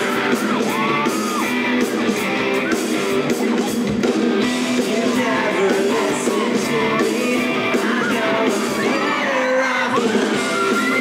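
Fans screaming and whooping in high squeals over a live band's amplified instruments holding notes, echoing in a large arena.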